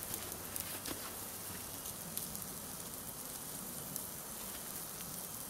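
Wood campfire crackling: a steady hiss with scattered sharp pops and ticks.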